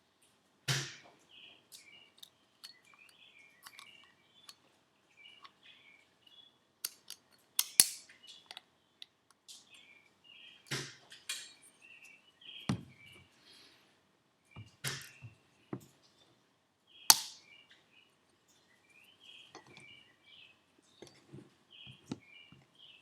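Scattered sharp metallic clicks and clinks from turbocharger parts and hand tools being handled and fitted during a bench rebuild, with a few much louder clicks spread through. Birds chirp faintly in the background.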